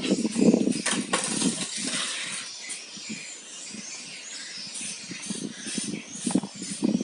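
Hands working on a scooter's loose spark plug cap and ignition lead, giving irregular handling and scraping noises with two sharp clicks about a second in.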